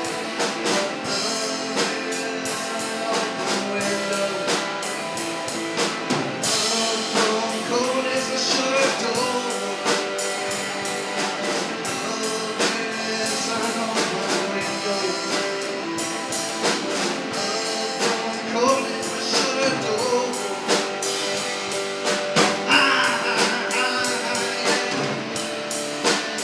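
Live rock band playing an instrumental passage, with a drum kit keeping a steady beat under guitar.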